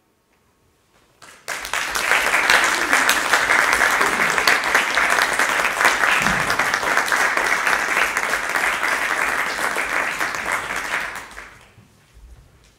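Audience applauding, beginning about a second and a half in after a brief quiet and dying away near the end.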